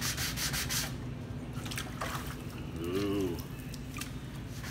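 Wet-sanding a painted metal panel by hand with 220-grit sandpaper on a block: quick back-and-forth strokes, about six a second, that stop about a second in.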